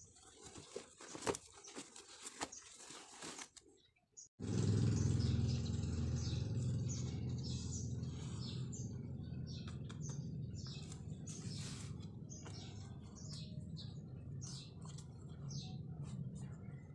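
Faint rustling and light clicks of hands handling the folded cotton shorts. After a sudden cut about four seconds in, a steady low hum takes over, with many short high chirps of small birds.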